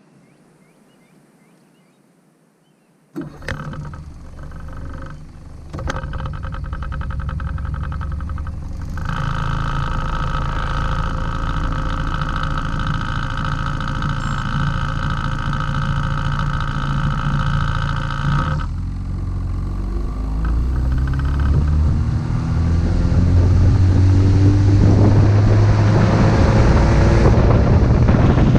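An engine starts up about three seconds in and runs, its pitch climbing over the last several seconds as it speeds up.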